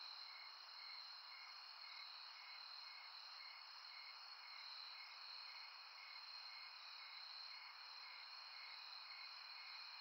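Faint night-time insect chorus of crickets: a steady high trill with a slower chirp repeating about twice a second.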